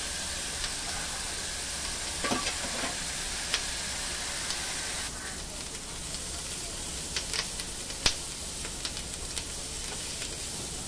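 Chopped bell peppers, tomatoes and ginger sizzling in butter in a nonstick frying pan, with a spatula stirring and scraping them and a few sharp taps against the pan.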